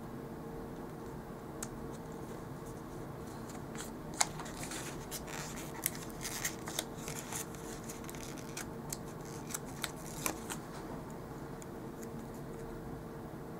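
Paper sticker sheets rustling and crackling as planner stickers are handled and peeled off, with a few sharp clicks. The loudest click comes about four seconds in, and the crackling dies away after about ten seconds, over a faint steady hum.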